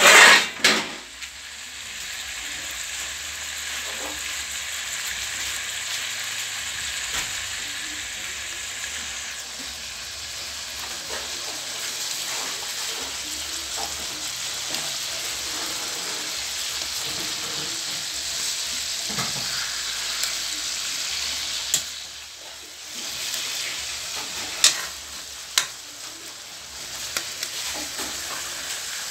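Oil sizzling steadily in a wok of frying food, with a loud clatter right at the start and a few sharp metal knocks later on.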